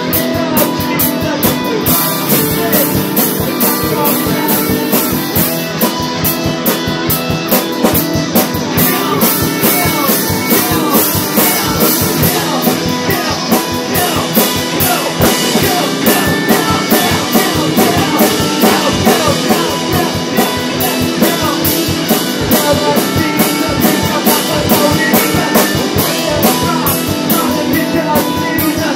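Rock band's demo recording: guitar and drum kit playing together at a steady beat.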